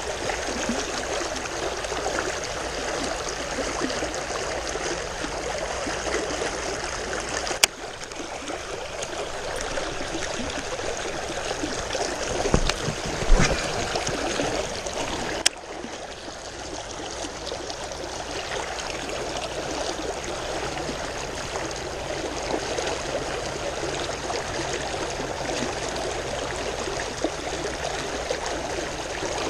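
River current flowing and splashing steadily, with a couple of sharp clicks and a brief low knocking near the middle.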